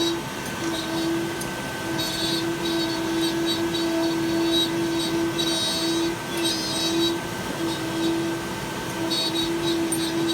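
Steady mechanical hum from a machine or fan running, one constant low tone with fainter higher tones above it, with short bursts of high hiss or clatter on top.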